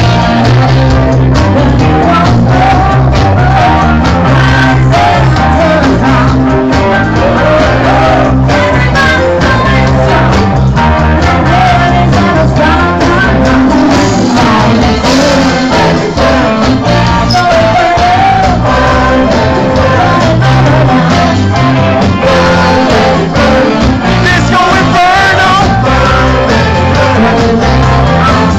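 Live rock band playing loudly, with a singer and electric guitars over a steady beat.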